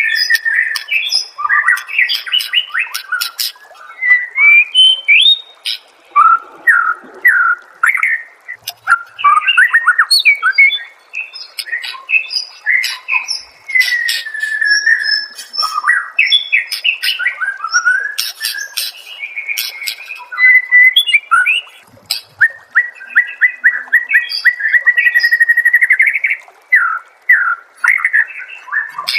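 Songbird masteran: a loud, continuous, varied song of short whistled phrases with rising and falling slurs and sharp clicking notes, and a long fast trill in the last third. A bird-song master track, played to caged songbirds so they learn and imitate it.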